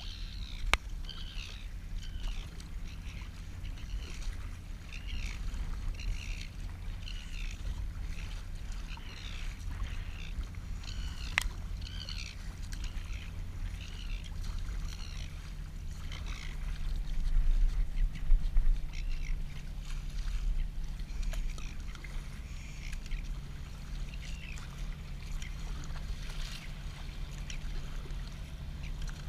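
Water splashing and lapping against an inflatable kayak as it is paddled, over a low steady rumble. Short water sounds repeat through the first half, and it gets louder for a couple of seconds about two thirds of the way through.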